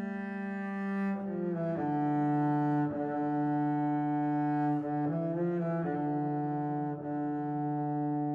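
Slow background music of held, low, sustained notes that step to a new pitch every second or few.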